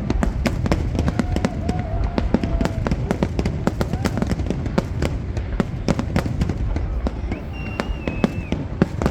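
Fireworks display going off: a rapid, dense stream of crackles and bangs over a continuous low rumble.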